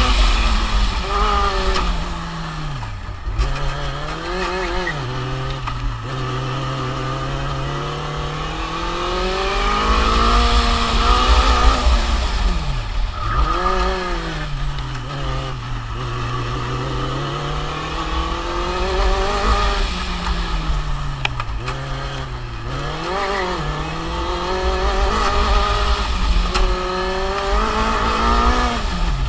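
Formula Student race car's engine heard from onboard, running hard around a circuit. The revs rise and fall again and again, with several sharp drops.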